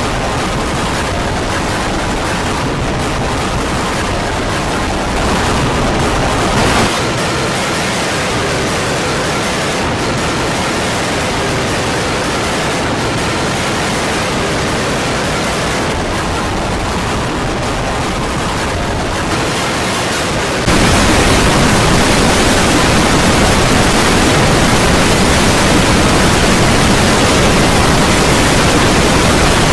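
Loud, steady static-like noise, a harsh hiss spread evenly from low to high pitch, stepping up suddenly to louder and brighter about twenty seconds in.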